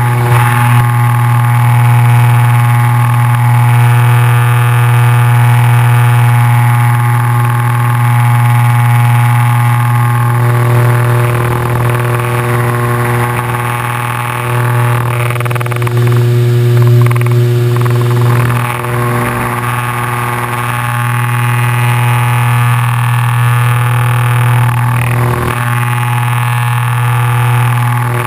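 Twin piston engines and propellers of a Piper PA-31-350 Navajo Chieftain droning steadily in the cockpit during an instrument approach. The drone is buzzy and coarse from the camera mount vibrating, and it wavers and dips slightly midway.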